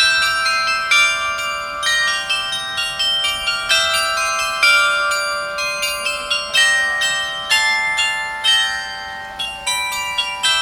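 Tuned bells playing a melody, a new note struck about once or twice a second, each ringing on under the next.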